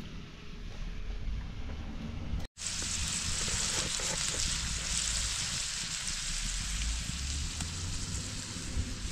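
Shredded carrots frying in a pan, a steady sizzle. It cuts out briefly about two and a half seconds in, then comes back louder and even.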